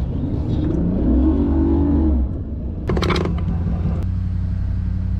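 A motor engine running, its pitch rising as it speeds up about a second in, then holding steady. There is a brief sharp sound about three seconds in.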